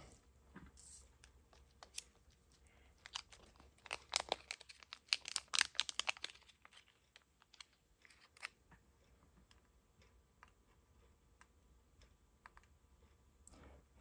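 Small metal fidget springs being handled and picked apart where they are tangled together, giving light clicks and rattles: a dense run of clicks in the middle and scattered single ticks otherwise.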